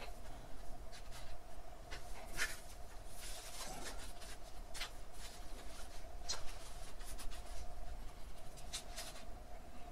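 Fingers digging into and firming gritty potting mix with perlite in a plastic pot while tucking in jade cuttings: scattered short, scratchy rustles over a faint steady hum.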